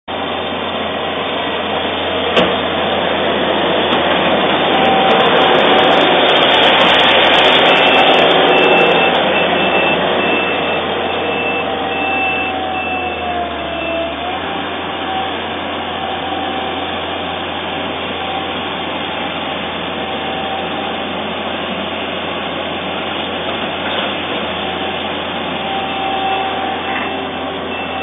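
Racoon skid steer loader running, a steady engine-and-machinery noise with a faint whine. It is loudest from about a quarter to a third of the way in.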